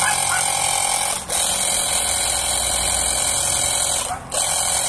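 Delton cordless battery-powered high-pressure water spray gun running, its motor pump spraying water. The steady noise cuts out briefly twice: once about a second in and once near the end.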